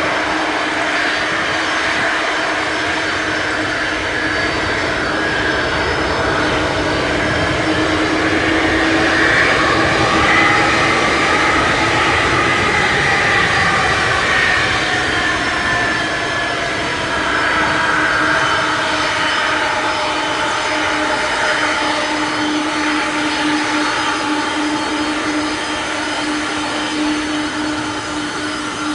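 The four jet engines of a Boeing 747-400 freighter taking off, heard as a loud, steady jet noise. Whining tones in it rise and then fall in pitch through the middle as the jet goes past.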